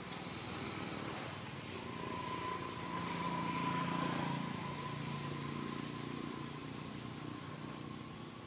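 A motor vehicle's engine hum swells to its loudest about four seconds in and then slowly fades, as a vehicle passing by would. A thin steady high tone runs alongside it from about two seconds in.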